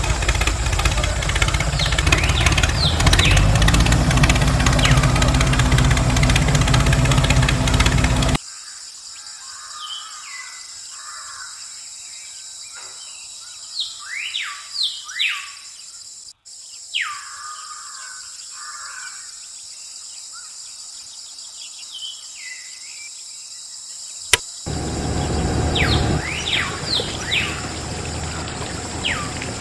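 Small birds chirping repeatedly in short, downward-sweeping calls. For about the first third they are partly covered by a loud steady mechanical running noise with a low hum, which cuts off abruptly. A sharp click comes near the end, then a softer steady noise.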